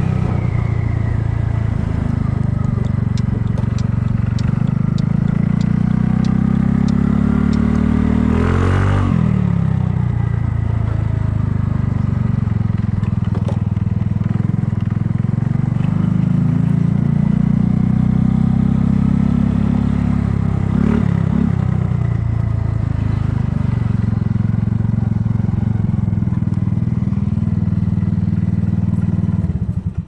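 Kymco People scooter's engine running while riding, its pitch rising and falling several times as the throttle is opened and eased off, with a sharp drop and pick-up about nine seconds in.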